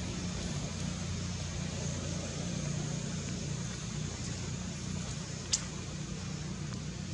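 Steady low hum with an even hiss, with one short sharp click about five and a half seconds in.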